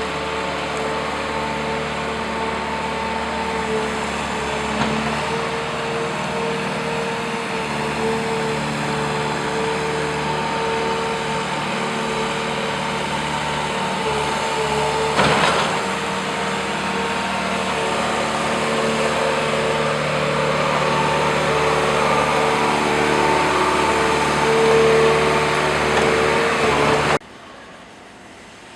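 JCB 3CX backhoe loader's diesel engine running steadily with a whine over it. A single knock sounds about halfway through, the sound grows a little louder toward the end, then cuts off abruptly to a faint hum.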